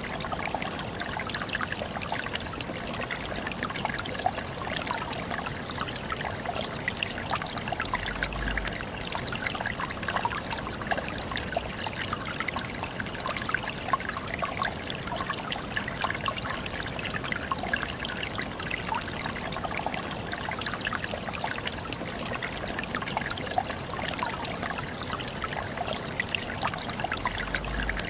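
Water trickling steadily, a continual spatter of small splashes with no change in flow.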